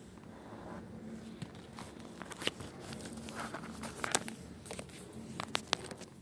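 Close-miked ASMR hand sounds: irregular crackling with sharp clicks, sparse at first and busier and louder from about two seconds in.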